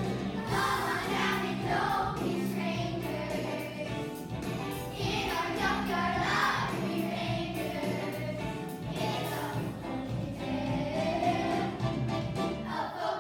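Children's theatre cast singing a musical-theatre song together in chorus, over instrumental accompaniment.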